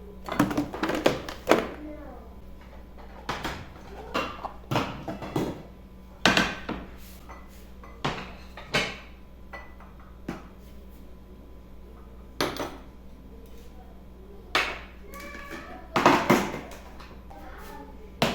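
Dishes, utensils and other kitchen things being handled and set down: about a dozen separate knocks and clinks at irregular moments over a faint steady hum.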